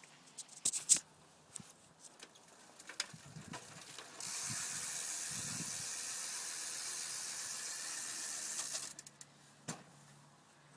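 Rear freewheel hub of a 20-inch Rooster Big Daddy BMX ticking as the wheel spins. The pawls' fast clicks run together into a steady buzz for about four and a half seconds, starting about four seconds in, with a few scattered clicks before and after.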